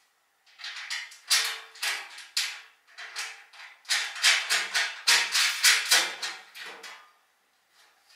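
Sheet-metal bandsaw stand being rocked and shifted on its wheeled base: a run of rough metal scrapes and rubs, one or two a second, stopping near the end.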